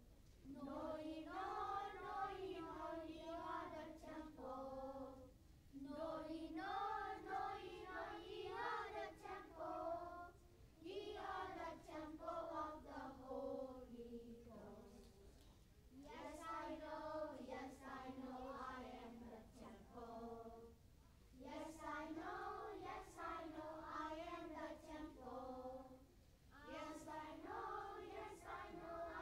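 A group of children singing together in phrases of about five seconds, with short breaks between them.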